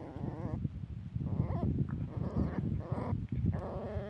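Puppy whining and yelping in about five short, wavering cries over a low rumble while the mother dog mouths it in play.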